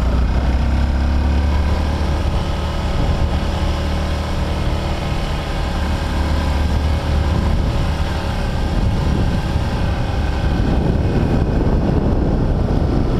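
Motorcycle engine running while riding, recorded on a camera mounted on the bike, with a steady low wind rumble on the microphone. Wind and road noise grow stronger about ten seconds in.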